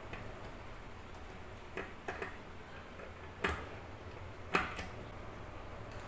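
Hands working at a wooden cabinet door while fitting its bar handle: a few light clicks and knocks, the two loudest about three and a half and four and a half seconds in.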